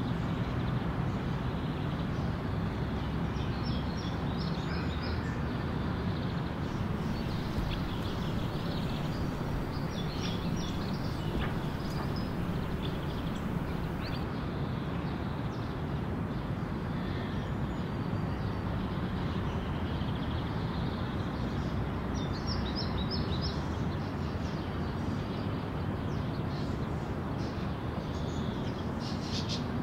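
Steady outdoor traffic noise from cars driving over a road bridge, with short bursts of bird chirps a few times.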